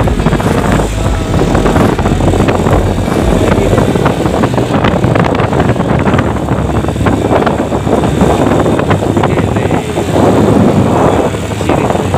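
Wind buffeting the microphone on a moving motorcycle, with the motorcycle engine and street traffic running underneath.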